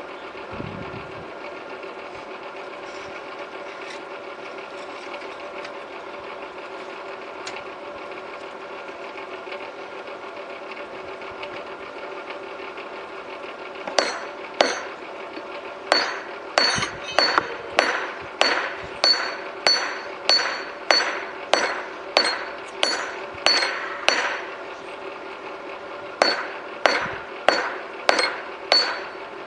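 Forge blower running with a steady hum. About 14 seconds in, a hand hammer starts striking red-hot rail steel on the anvil: two blows, then a steady run of about two blows a second with a short pause near the end, each blow with a bright anvil ring.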